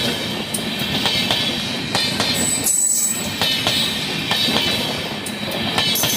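LHB passenger coaches rolling past at close range: a steady rumble of wheels on rail with repeated clacks as the wheelsets cross rail joints, and a thin high squeal from the wheels over it.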